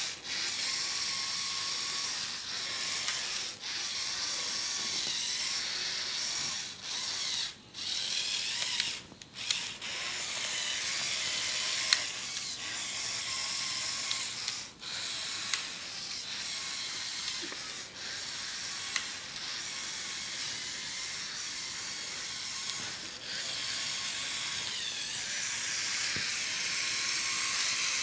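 LEGO Technic trial truck's Power Functions large motor and plastic gear drivetrain whirring as it drives. The whirr breaks off briefly several times, where the motor stops and starts again.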